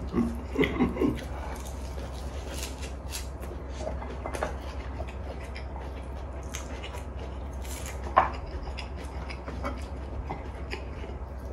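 Close-up eating sounds: chewing, with scattered light clicks of metal chopsticks against bowls and the pan, and one sharper click about 8 seconds in. A steady low hum runs underneath.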